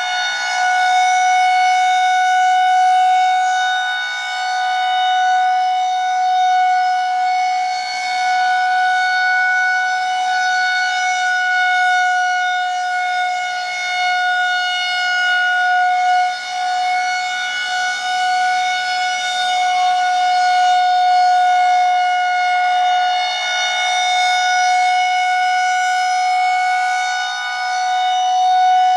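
Federal Signal 2001-130 outdoor warning siren sounding the full alert: one steady, unwavering tone held throughout, its loudness swelling and fading slowly as the siren head rotates. This is the siren's routine weekly test.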